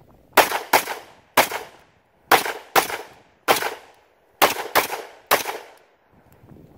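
Nine pistol shots fired over about five seconds in an uneven rhythm of quick pairs and single shots, each a sharp crack with a short echoing tail.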